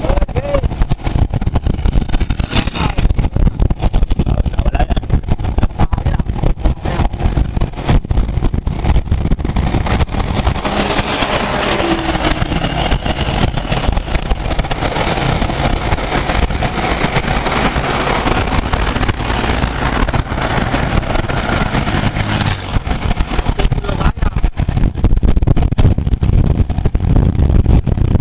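Wind buffeting the microphone of a camera riding on a moving road bicycle, with tyre and road noise underneath; a steadier hiss fills the middle stretch.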